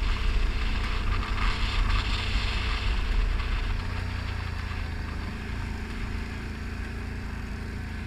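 A Can-Am ATV's engine heard from the rider's seat, running at speed with a rough, noisy edge for the first few seconds. About four seconds in it eases off to a quieter, steadier note as the quad slows.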